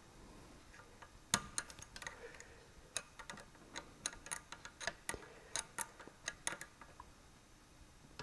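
A wrench tightening the jam nut on a sterndrive's shift linkage: a series of faint, irregular metallic clicks over about five seconds, the first the loudest.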